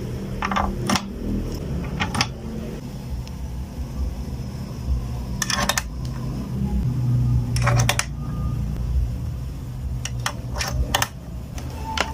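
Deep bass notes from an active subwoofer during a bass test, with short sharp clicks and rattles breaking in over them every second or so.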